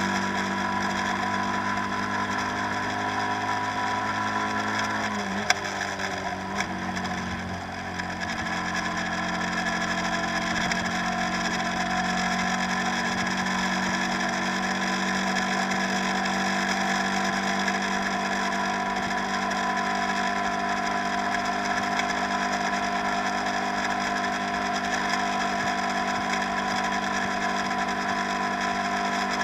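A tour boat's engine running steadily. Around five to seven seconds in its pitch dips and then comes back up, and there is a single sharp knock about five and a half seconds in.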